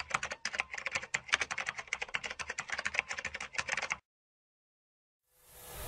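Rapid, continuous clicking of keys being typed. It cuts off abruptly about four seconds in and is followed by silence, then a rising swell of sound begins just before the end.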